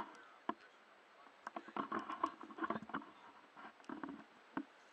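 Faint, scattered knocks, clicks and rubbing from a handheld action camera being moved and bumped against clothing.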